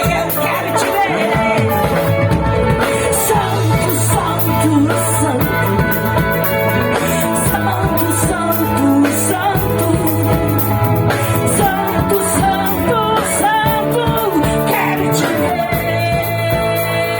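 A live worship band playing a song: drums, bass, electric guitar and keyboard, with a voice singing over them.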